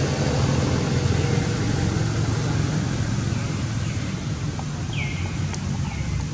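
Steady low outdoor background rumble. Over it, a short high falling call repeats: faintly about a second in, clearly about five seconds in, and again just before the end.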